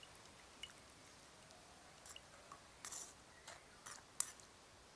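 Faint, scattered clicks and small wet handling sounds of kitchen work on soaked tamarind pulp, with one sharper click about four seconds in.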